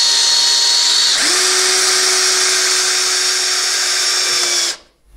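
Cordless drill-driver running steadily, driving a narrow-headed floorboard screw at about 45 degrees through the tongue of a planed floorboard. Its whine shifts in pitch about a second in and cuts off abruptly near the end.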